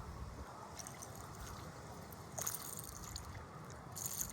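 River water moving along the bank under a steady low rumble, with two short hissing bursts about two and a half and four seconds in.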